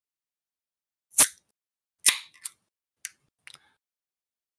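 Five sharp clicks or taps, the loudest about a second in and the rest following about half a second apart, with dead silence between them.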